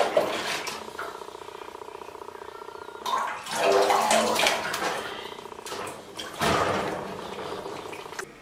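A domestic cat yowling in protest while being bathed, with several low, pitched calls loudest about four seconds in. Water splashes in a stainless steel sink as hands rub its wet fur, with a louder splash about six and a half seconds in.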